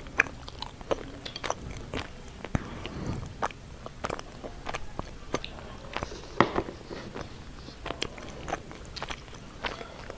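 Close-up eating sounds: chewing and mouth noises, with frequent short sharp clicks of wooden chopsticks against a bowl, coming irregularly a few times a second.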